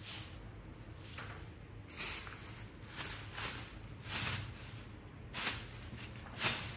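Thin shopping bag rustling and crinkling in a series of short bursts as a capuchin monkey tugs at it and rummages inside.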